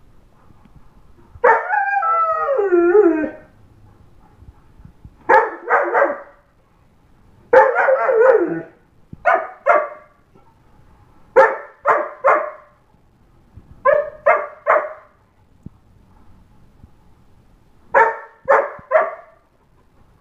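Young German Shepherd, 8½ months old, howling: one long wavering howl that drops in pitch at the end, then short howling barks in quick groups of two and three.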